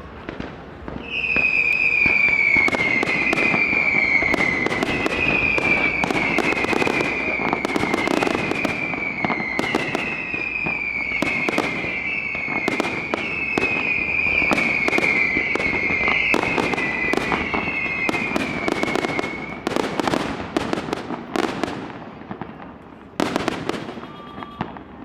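Fireworks going off in quick succession: a run of falling whistles, one after another, over dense crackling bangs. About twenty seconds in the whistles stop, leaving scattered bangs, with a loud one near the end.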